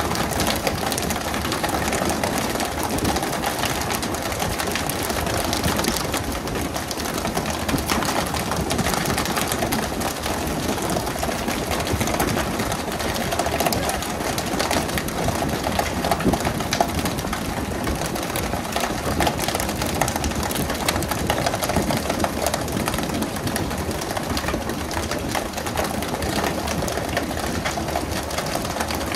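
Fishing boat's engine running steadily under a constant rush of noise, with no pauses or changes.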